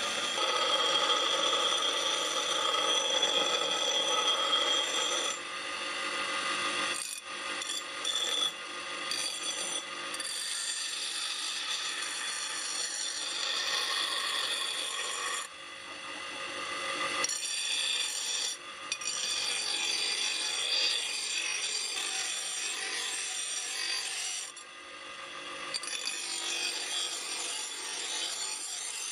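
Bench grinder's abrasive wheel grinding a steel knife blade: a steady harsh grinding hiss over a constant whine. It drops away briefly three times, about a quarter, half and five-sixths of the way through.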